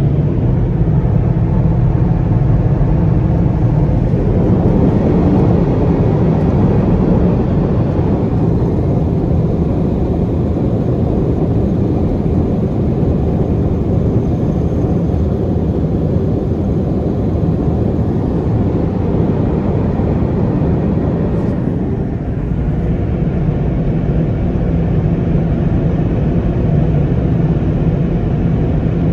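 MCWW car wash blower dryers running, a loud steady rush of air heard from inside the car during the drying stage, with a brief dip about two-thirds of the way through.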